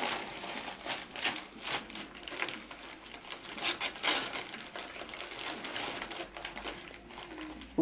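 Tissue paper and a gift bag rustling and crinkling in irregular crackles as a child rummages in the bag and pulls the paper out.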